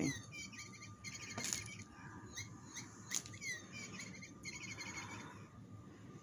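Battery-powered electronic cat toy chirping: repeated short runs of high, bird-like tweets, the sound the owner calls 'screaming'.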